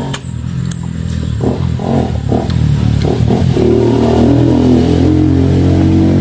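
A motor engine running steadily, getting louder and fuller about halfway through.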